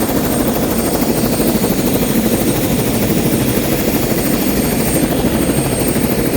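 Airbus AS-355 twin-turbine helicopter running, its rotor making a steady rapid beat under a thin high whine.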